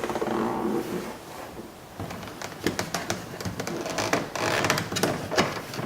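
Hands and a tool working the trim around a car's inside door handle loose: a rustling scrape, then a run of light clicks and taps.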